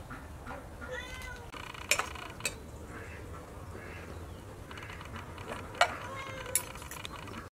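A metal fork clinking sharply against a ceramic plate a few times, loudest about two and six seconds in. Between the clinks a cat meows several times in short rising-and-falling calls.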